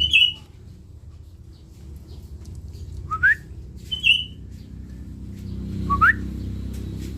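Lory (nuri parrot) giving four short whistled calls, alternating a brief high chirp with a quick upward-sliding whistle.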